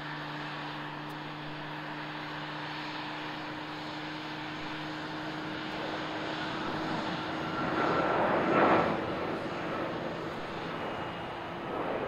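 Boeing 757-200's jet engines on the landing rollout just after touchdown: a steady roar that swells to its loudest about eight to nine seconds in, then eases off.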